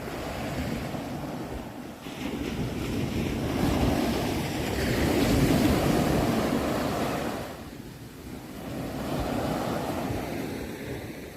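Ocean waves washing onto a shore, each swell rising and falling away: a long surge that peaks about midway, a brief lull, then a smaller wave.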